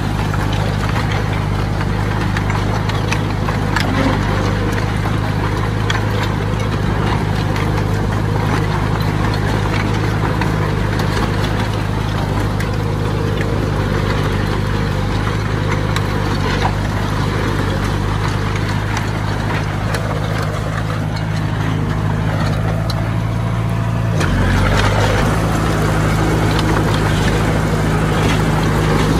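Heavy earthmoving machine's engine running steadily, with occasional clanks. About 24 seconds in, the engine note changes and grows a little louder.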